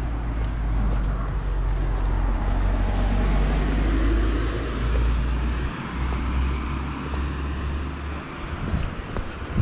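Steady low rumble and hiss of movement noise on a camera travelling along a street, most likely wind on the microphone and rolling or travel noise. The rumble dips briefly about halfway through and falls away near the end, where a few light clicks are heard.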